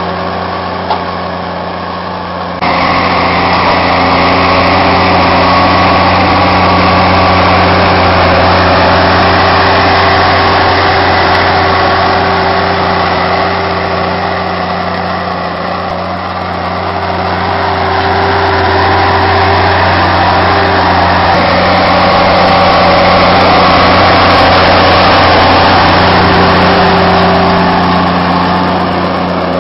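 Farm tractor's diesel engine running steadily under load as it drives a front-mounted silage packer across a silage pile. The engine gets suddenly louder about three seconds in and dips briefly near the middle.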